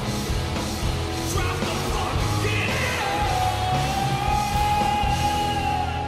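Rock goal song: a heavy beat with a singer yelling, who holds one long note from about halfway through.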